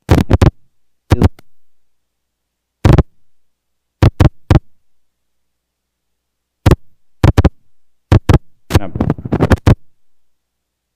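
Lemon being zested on a rasp grater: short, sharp scraping strokes in about eight separate bursts, each cutting off abruptly into silence.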